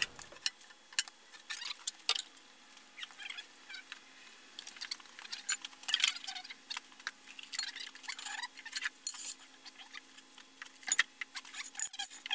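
Steel digging bar prying at the base of a heavy milling machine that sits on steel pipe rollers: an irregular run of metallic clinks, knocks and short rattles as bar, pipes and cast iron strike and scrape.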